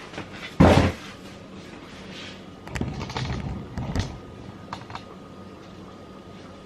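Handling noises from a small plastic coffee maker and its packaging. A loud thump comes about half a second in, then a second or so of rustling and light knocks, then a couple of small clicks.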